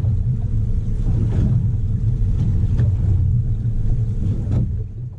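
Steady low rumble of wind buffeting a boat-mounted camera's microphone offshore, with a few faint clicks.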